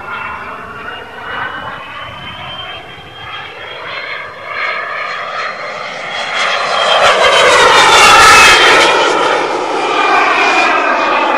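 Radio-controlled model jet flying past, its engine's high whine growing louder to a peak about eight seconds in, then dropping slightly in pitch as it passes.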